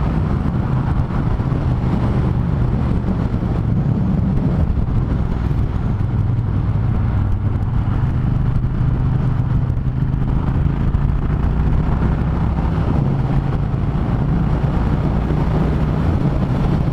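Triumph Thunderbird Storm's parallel-twin engine running steadily at road speed, heard from the rider's helmet mic under a constant rush of wind and road noise.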